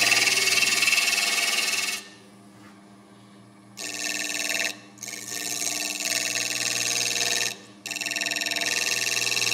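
A gouge cutting cedar of Lebanon on a running wood lathe: a steady hissing, buzzing cut as shavings come off. It stops three times as the tool comes off the wood, for nearly two seconds from about two seconds in, then twice briefly, leaving only the lathe's faint hum.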